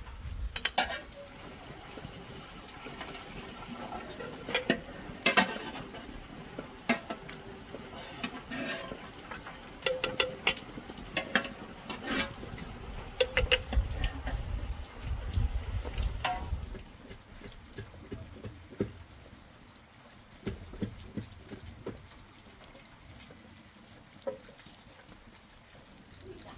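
Metal kitchenware clinking and scraping: a ladle and steel bowls knocking against an aluminium pot as milk is scooped, poured and stirred for curd-making. The clinks come irregularly, thick in the first two-thirds and sparser near the end.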